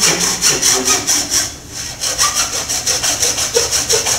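Fine-toothed hacksaw cutting through 2-inch ABS plastic pipe in quick back-and-forth strokes, about five a second, with a short pause about one and a half seconds in.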